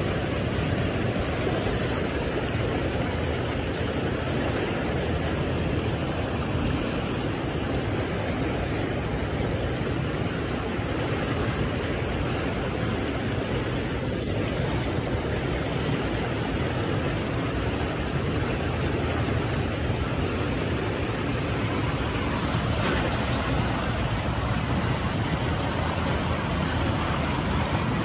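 Steady rush of turbulent water churning below a dam spillway.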